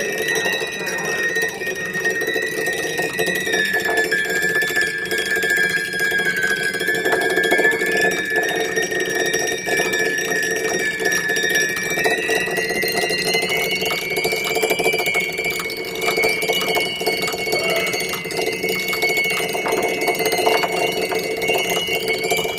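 Small sex-toy vibrator resting on the high strings of a baby grand piano, buzzing against them and setting them ringing in sustained, bell-like tones. A high ringing tone sinks a little and then climbs higher in the second half, over a steady lower drone.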